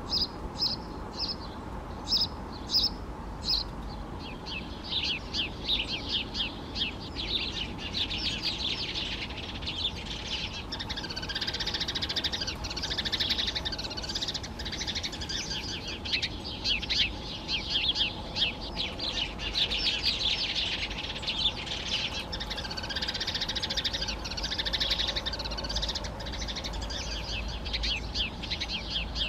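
Wild birds calling: a few separate sharp, high calls at first, then about four seconds in a dense, continuous twittering of many rapid chirps that runs on.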